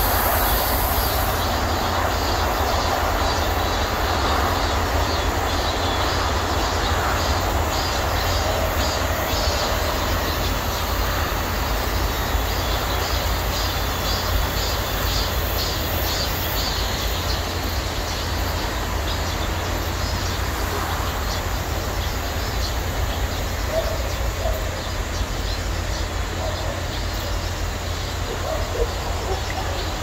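Cicadas calling in a dense, steady chorus. Through the first half, one call pulses in quick regular beats about twice a second. A steady low rumble runs underneath.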